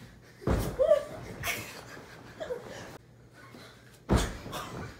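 Dull thumps of a thrown pillow striking, three times: about half a second in, a second later, and just after four seconds as the pillow hits the phone. A short laugh comes between the first two.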